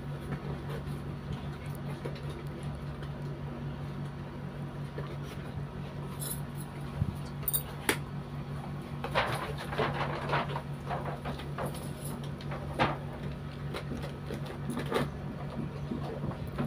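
Cardboard doll box with a plastic window being opened and handled: scattered rustles, scrapes and clicks, busiest in a cluster from about nine seconds in, over a steady low hum.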